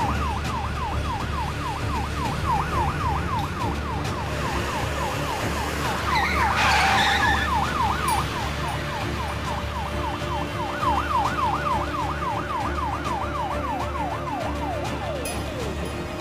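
Ambulance siren on a fast yelp, rising and falling about three times a second over a steady low vehicle drone. A short rushing noise breaks in about six and a half seconds in, and near the end the siren winds down to a falling tone.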